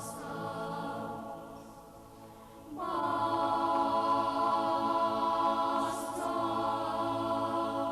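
Boys' choir singing the close of the echo song: a quieter stretch, then about three seconds in the full choir comes in loudly on a long held chord.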